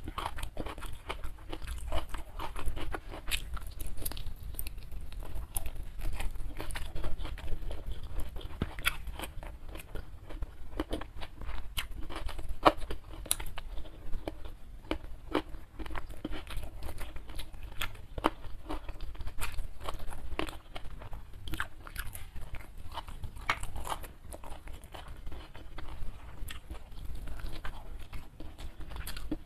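Close-miked chewing and biting as a person eats a spicy smashed fried chicken wing (ayam geprek) with rice by hand. Dense, irregular mouth clicks and smacks continue without pause.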